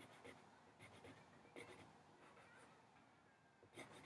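Faint scratching of a pencil sketching on paper, in a few short strokes.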